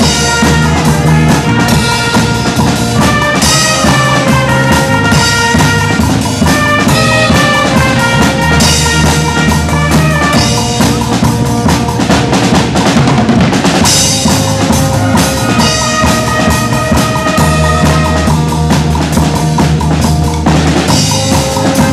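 School band playing a number: saxophones, trumpets and trombones over a drum kit keeping a steady beat, loud and continuous.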